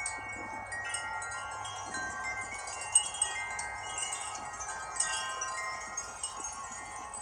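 Wind chimes ringing in a light breeze between gusts, struck irregularly, with several tones overlapping and ringing on; one louder strike about three seconds in.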